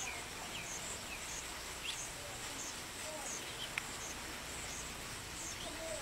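Outdoor ambience: birds chirping now and then over a steady hiss, with a high insect pulse repeating about twice a second. A single sharp click sounds a little before the four-second mark.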